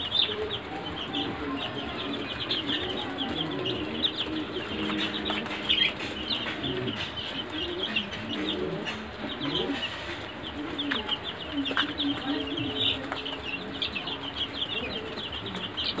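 A brood of young Sonali chicks peeping constantly, many short high peeps overlapping one another.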